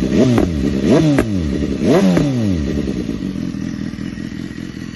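2015 BMW S 1000 R's inline-four engine with its catalytic converter removed, blipped in several quick revs that rise and fall sharply, then dropping back to a steady idle after about two and a half seconds.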